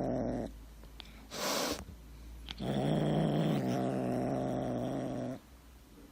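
A cat's low, drawn-out vocalisation, heard twice, the second lasting nearly three seconds, with a brief hissing noise between.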